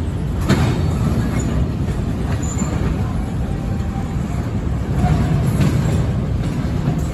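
Intermodal freight train's well cars rolling past: a steady rumble of steel wheels on rail, with a few sharp clanks.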